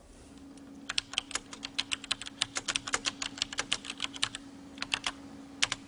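Fast typing on a beige desktop computer keyboard: a quick run of key clicks for about three and a half seconds, then a pause and a few more keystrokes near the end, over a faint steady hum.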